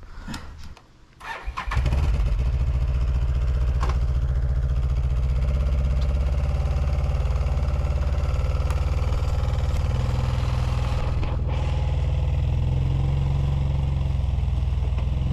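Can-Am ATV engine coming in abruptly about two seconds in and then running steadily at even revs while towing a load on a cable.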